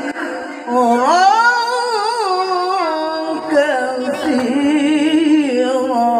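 A qori reciting the Quran in a high voice, in long ornamented melodic phrases. There is a rising glide about a second in, and held notes that waver.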